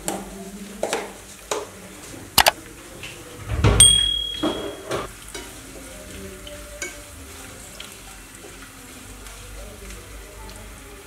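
Oil sizzling in a frying pan with sesame seeds, garlic and peppercorns, stirred with a plastic spatula. Several sharp clicks in the first few seconds and a louder knock about four seconds in, then a steadier, quieter sizzle.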